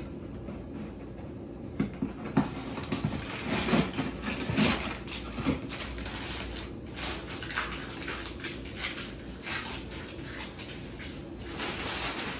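Cardboard and paper packaging being handled: rustling, scraping and light knocks and clatter, busiest and loudest around four to five seconds in.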